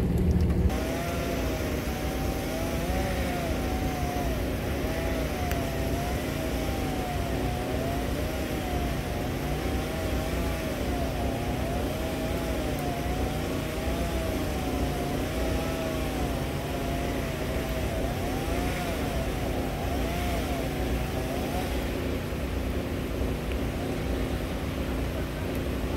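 Chainsaw running at a distance while cutting up a fallen tree, its pitch rising and falling over and over as it bogs in the cut and revs up again. A steady low rumble runs underneath, and the saw fades out a few seconds before the end.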